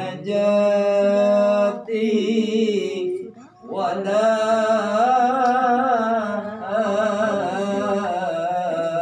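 A man chanting Qur'an recitation in the Sikah maqam, holding long notes with wavering melismatic ornaments. Two short phrases come first, then a brief breath about three and a half seconds in, then one long drawn-out phrase.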